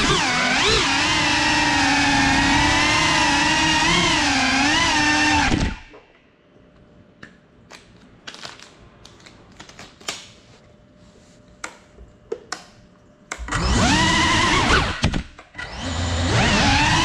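Cinelog35 cinewhoop FPV drone's motors and propellers whining loudly, the pitch rising and falling with the throttle, then cutting off suddenly about six seconds in: the drone has crashed and the motors have stopped. Small clicks and knocks follow in the quiet, then the motors spin up again about thirteen seconds in, dip briefly and run on as it takes off.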